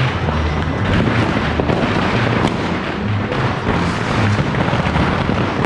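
Dense, continuous crackling and popping of firecrackers and fireworks, with music and its bass line playing underneath.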